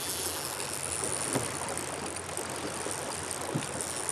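Small river flowing and rippling around an anchored kayak, a steady watery hiss, with a couple of faint knocks.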